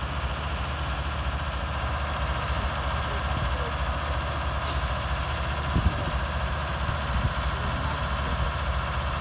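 An engine idling with a steady low throb, and a short knock about six seconds in.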